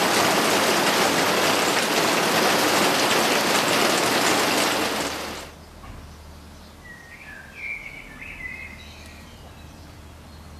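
Heavy rain on a twin-wall polycarbonate greenhouse roof, a dense steady hiss that stops abruptly about five and a half seconds in. After it, quieter open air with a bird chirping a few times.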